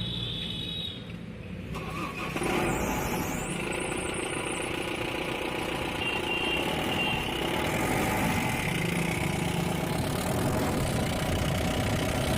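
Mahindra Bolero Maxitruck Plus diesel engine starting about two seconds in, then idling steadily. It starts after a fresh oil change and a diesel filter whose air has just been bled out.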